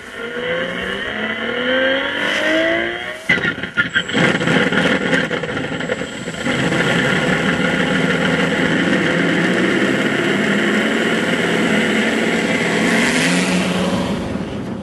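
Sound generator on board an electric RC Ju 87 Stuka model playing a simulated piston aero-engine. It starts with rising sweeps in the first few seconds, then settles into a steady engine drone that grows louder about six seconds in. Near the end a rushing noise from the propeller builds as the model starts its take-off run.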